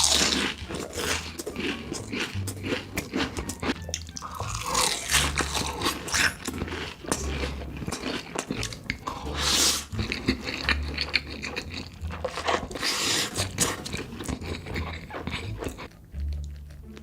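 Close-miked eating: crunchy bites and chewing of food, over quiet background music with a repeating bass line.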